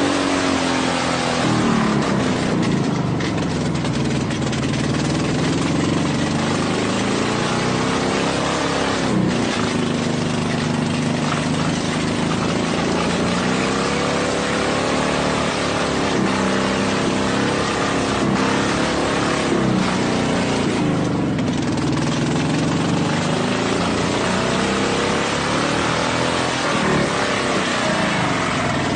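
A vehicle engine running, its revs rising and falling again and again, over a steady rushing noise.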